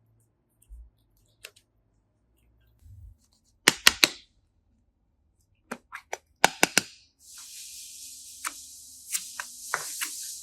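Sharp clicks and snaps in small clusters, the loudest a quick run of three, followed over the last three seconds by a steady hiss with more clicks through it.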